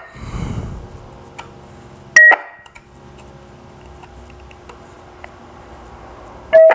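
Short electronic beeps from a GE Phoenix SX mobile VHF radio as its front-panel channel buttons are pressed: one brief beep that steps from high to low about two seconds in, and a shorter, lower beep near the end. A short burst of hiss comes at the start.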